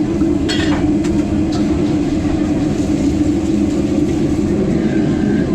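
A loud, steady low mechanical drone, with a few short clinks about half a second and a second and a half in.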